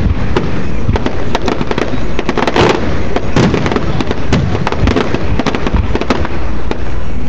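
Fireworks grand finale: a dense, unbroken barrage of shell bursts and crackling reports, several bangs a second.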